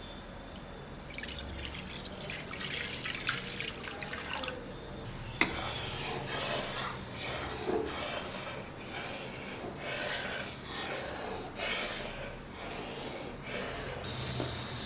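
Utensil scraping and stirring in a cooking pan, in repeated irregular strokes, with one sharp click about five seconds in.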